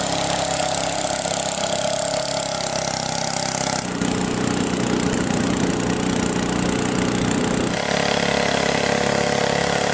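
Small engine of a wooden longtail boat running steadily at speed along a river, with a hiss of water over it. The engine sound changes abruptly about four seconds in and again near eight seconds: a closer, lower drone from on board, then a more distant sound from the bank.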